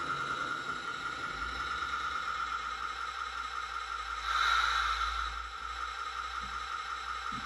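G-scale model train rolling along the track with a low rumble and a steady high whine, coming to a stop. A louder burst of hiss rises about four seconds in and fades within a second.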